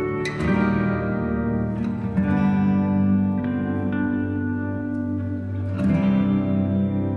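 Background music: plucked guitar notes over a sustained low accompaniment.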